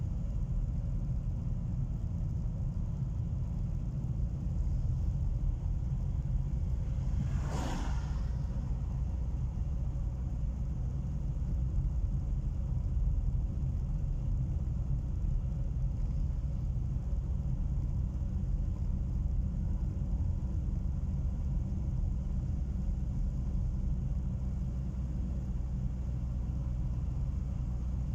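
Steady low rumble of a car's engine and tyres on the road, heard from inside the cabin while driving, with a brief whoosh about seven or eight seconds in.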